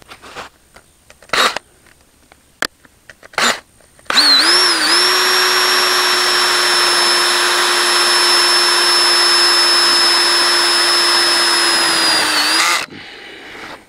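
Cordless drill driving a self-tapping screw into a metal wind-brace pipe. A few short trigger bursts come first, then about eight seconds of steady motor whine whose pitch dips briefly as it starts and sags slightly just before it stops.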